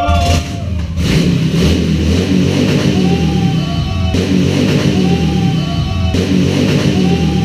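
Harley-Davidson V-twin motorcycle engine running, with music playing over it.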